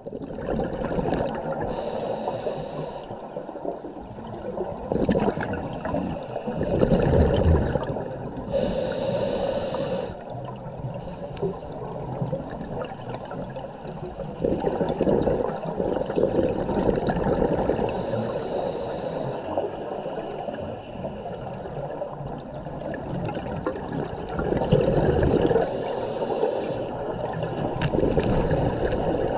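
Scuba regulator breathing underwater: four breaths, each a short hissing inhale through the demand valve followed by a longer bubbling exhale, about every eight seconds.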